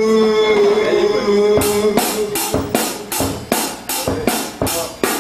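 A long held sung note, with a slight wobble in pitch, then about one and a half seconds in a drum kit comes in with a steady beat of about two and a half hits a second, each hit crashing up into the highs.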